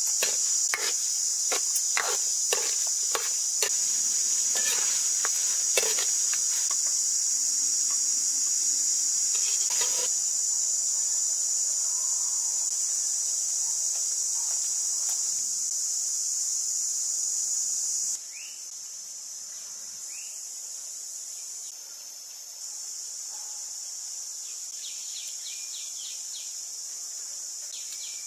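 Steady, high-pitched drone of insects, the loudest sound throughout, dropping in level about two-thirds of the way through. Over roughly the first ten seconds a metal ladle clinks and scrapes against a wok.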